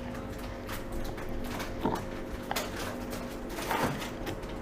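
A few separate light knocks and clatters, about four over the few seconds, over a faint steady hum.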